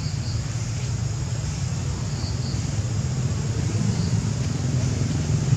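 A steady low rumble of outdoor background noise, with a couple of faint high chirps about two seconds in.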